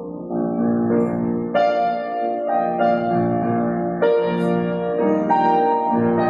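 Closing postlude played on a keyboard after the benediction: slow, sustained chords, a new chord struck about every second.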